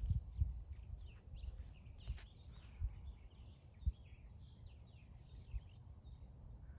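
Songbirds chirping, a quick series of short high notes, over an uneven low rumble of wind on the microphone. A few rustles and knocks come in the first couple of seconds.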